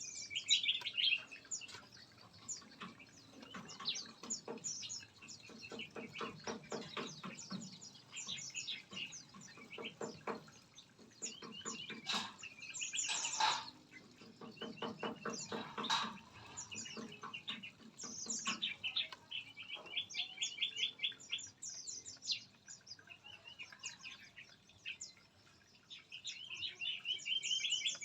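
Several small aviary birds chirping and trilling in short, high, overlapping calls. Through the middle there are stretches of a lower, rapidly pulsing call.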